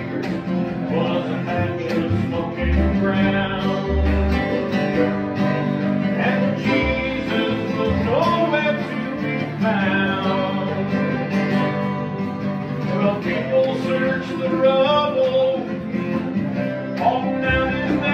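Bluegrass jam: acoustic guitar and other plucked string instruments playing a song together.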